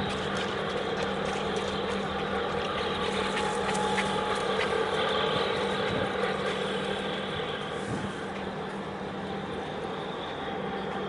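Steady low mechanical drone of distant engines across the harbour water, with a constant hum running through it. It swells a little midway, then eases off.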